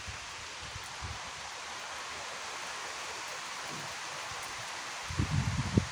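Rain falling, a steady even hiss. Near the end comes a brief burst of low rumbling thumps, the loudest sound here.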